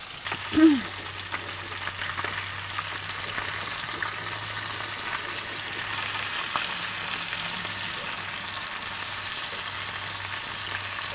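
Mu fillets, garlic and chives frying in hot olive oil in a cast-iron skillet: a steady sizzle, with a wooden spatula moving in the pan. A brief pitched sound about half a second in, and a low steady hum underneath.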